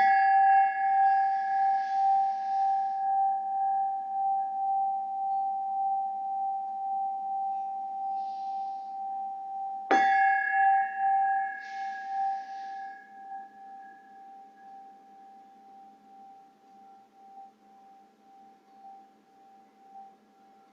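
A singing bowl struck twice, about ten seconds apart. Each strike rings out in a long, steady tone that slowly fades away, played as a healing "frequency of appreciation".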